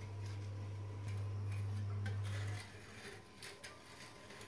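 Metal spatula scraping and clicking against a plaster wall while spreading polyurethane sealant into a crack: short, scattered scrapes and ticks. A steady low hum runs under them and cuts off suddenly about two and a half seconds in.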